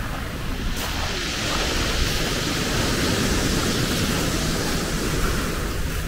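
Sea waves washing up and drawing back over a pebble beach: a rushing hiss that swells about a second in and eases off near the end, over a low rumble of wind on the microphone.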